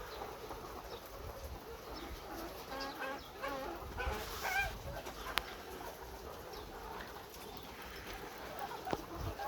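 Many caged laying hens clucking and calling together, with short overlapping calls, busiest about three to five seconds in. A couple of sharp clicks stand out, one about five seconds in and one near the end, over a low steady hum.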